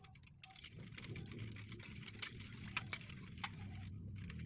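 Metal spoon stirring a lump of palm sugar in water in a stainless steel saucepan: soft liquid swishing, with a few sharp clinks of the spoon against the pan in the second half as the sugar is dissolved.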